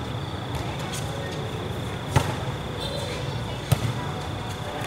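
Volleyball being struck twice during play, two sharp slaps about a second and a half apart over steady background noise.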